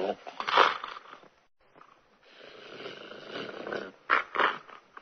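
Dog sounds: a short loud burst about half a second in, a pause of nearly a second, then rough breathy noise and two short sharp bursts a little after four seconds in.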